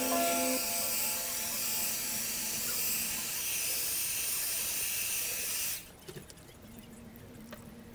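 A few last notes of background music, then a steady high hiss like static or rain that cuts off suddenly about six seconds in, leaving a short, much quieter gap with a few faint clicks.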